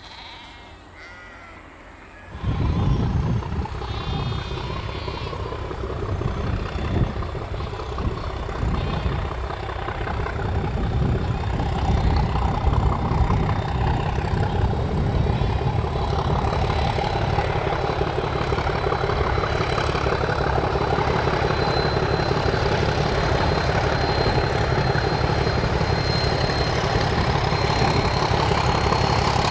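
Double-headed English Electric diesel-electric locomotives DI 1102 and DG 772 working hard, hauling a passenger train up a grade. The engines come in about two seconds in as a deep, steady rumble and grow gradually louder as the train approaches.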